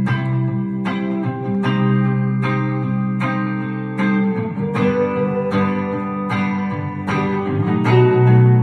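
Instrumental guitar music: sustained chords struck about every 0.8 seconds over a steady low bass.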